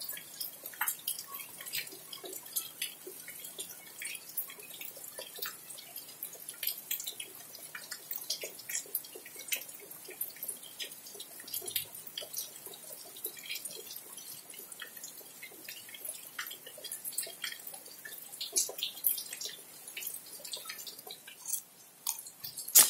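Rain dripping onto a balcony and its potted plants: many irregular drops ticking over a faint, steady hiss of rain. Right at the end a louder knock and rustle come as the phone is handled.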